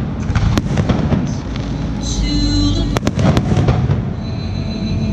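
Aerial firework shells bursting over continuous low rumbling, with a sharp crack about half a second in and a quick cluster of three cracks about three seconds in.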